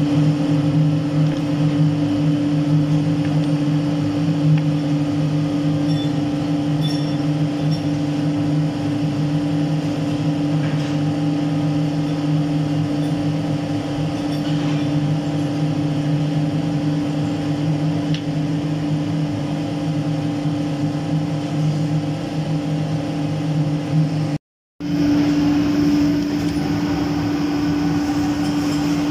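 Lathe running steadily, a constant machine hum with a low double tone. It drops out for an instant about 24 seconds in, then carries on unchanged.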